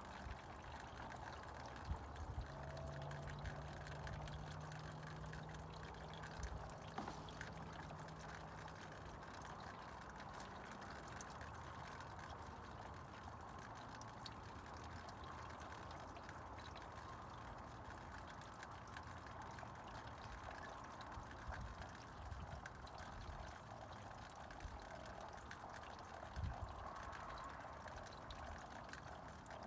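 Spring snowmelt water trickling steadily and faintly. A low hum runs underneath for the first several seconds, and a couple of soft thumps come about two seconds in and near the end.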